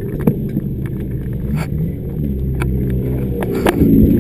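Scion FR-S's 2.0-litre flat-four engine running, heard from inside the cabin, with scattered knocks and rattles. About three and a half seconds in, it gets louder and rises in pitch as the revs climb.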